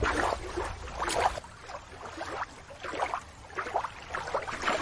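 Water splashing and lapping in irregular washes.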